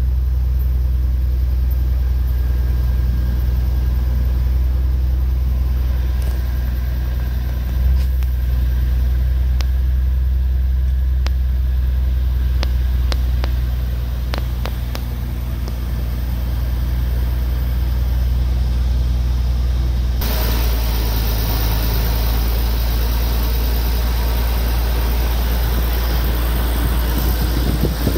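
Nissan R33 Skyline GT-R's RB26DETT twin-turbo straight-six idling steadily at just over 1,000 rpm, freshly started after about half a year sitting unused. About twenty seconds in, a steady hiss joins it as the sound moves from the cabin to the open engine bay.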